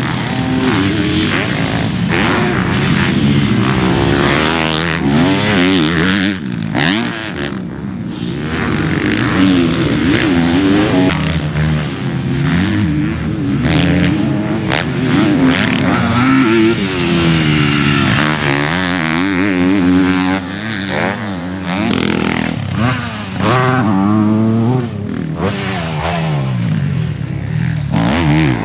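Four-stroke motocross bikes at speed on a dirt track: the engine pitch climbs, breaks off and climbs again as the riders accelerate, shift and shut the throttle, over and over.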